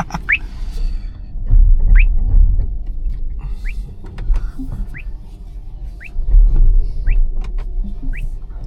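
Inside a Tesla's cabin while driving on snow: a low road and tyre rumble that swells and eases, with short rising squeaks repeating about once a second.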